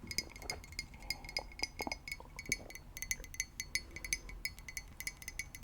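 Rapid clinking taps on a small hard object that rings with a clear high tone at each strike, in irregular runs of several taps a second.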